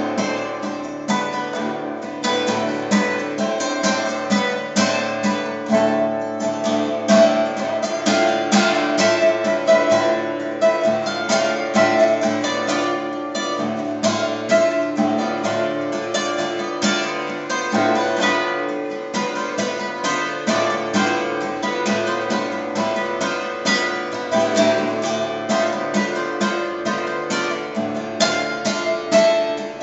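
Acoustic guitar being improvised on, with rapid plucked and strummed notes that run on without a break.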